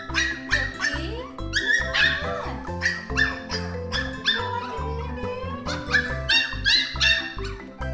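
A Shih Tzu–Lhasa Apso puppy yipping and whimpering again and again in short high rising-and-falling cries, over background music.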